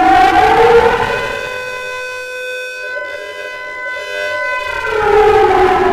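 D1200 civil defense siren sounding: a loud, many-toned wail that rises in pitch over the first second, holds steady and softer in the middle, then slides down in pitch near the end.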